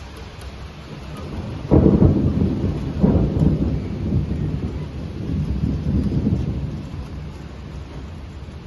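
Thunder: a sudden loud clap about two seconds in, a second surge a second later, then a low rolling rumble that dies away over about four seconds, over the steady hiss of heavy rain.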